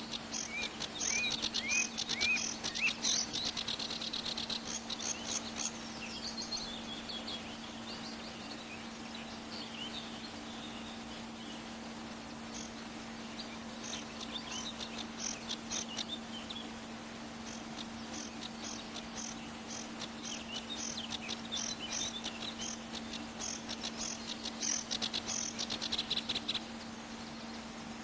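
Small birds chirping in quick clusters of short, high notes, with a few rising calls near the start and busier stretches at the beginning and again near the end. A steady low hum runs underneath.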